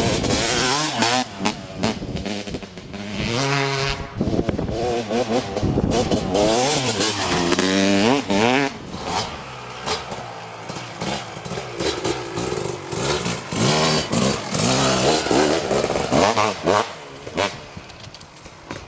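Kawasaki KX250 single-cylinder two-stroke engine through an FMF Gnarly expansion-chamber exhaust, revving up and down over and over in rising and falling sweeps. It drops to a quieter level near the end.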